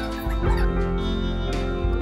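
Background music with sustained instrumental notes, with a short wavering higher-pitched sound in the first half second.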